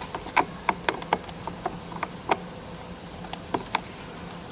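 Irregular small plastic clicks and taps as the needle part of a Dolce Gusto coffee machine is fumbled back into its seat, over a steady low hum.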